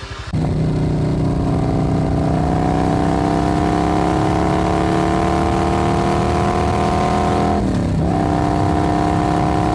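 Honda automatic scooter's single-cylinder engine running under way, its pitch slowly rising for several seconds. The pitch dips briefly about three quarters of the way through, then holds steady.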